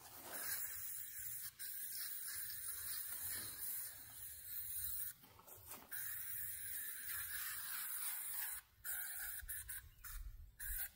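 Aerosol can of Repel Sportsmen insect repellent spraying in hissing bursts: one long spray of about five seconds, a short pause, another long spray, then a few short squirts near the end.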